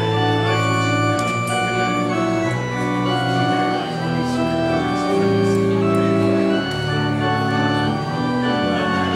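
Organ playing the closing postlude of a church service: sustained chords over held bass notes, the harmony changing every second or two.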